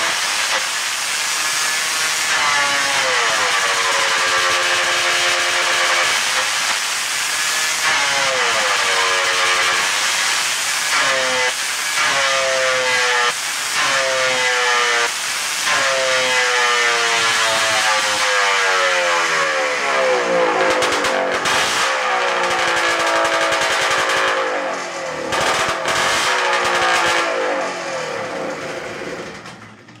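Ski-Doo Blizzard's single-cylinder Rotax 277 two-stroke engine being blipped on the throttle again and again, its pitch rising and falling every couple of seconds. It sinks and dies away at the very end. After carburettor and ignition trouble, the owner takes it to be finally running as it should.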